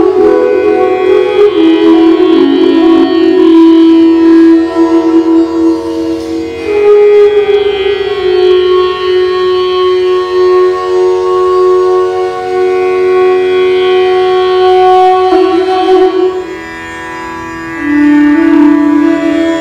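Bansuri, the Indian bamboo flute, playing a slow improvisation of long held notes that slide from one pitch to the next, resonating inside an empty stone water tank. It eases off briefly near the end, then settles on a new lower note.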